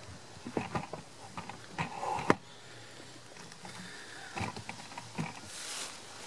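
Footsteps crunching through dry fallen leaves, in uneven strokes, with a single sharp knock about two seconds in and a stretch of leaf rustling near the end.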